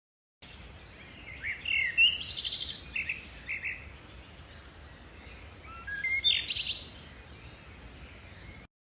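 Birds chirping and singing in two bouts, one about a second and a half in and another about six seconds in, over a steady low background hiss. The sound starts after a brief silence and cuts off abruptly near the end.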